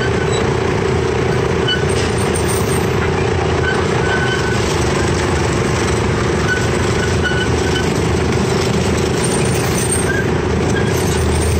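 Miniature amusement-park train running steadily along its track: a constant engine drone with a steady hum over the rumble of the ride.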